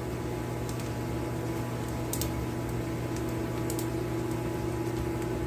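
Steady mechanical hum from a kitchen appliance, with a few faint crackles from sausage and flour frying in a skillet on a gas burner.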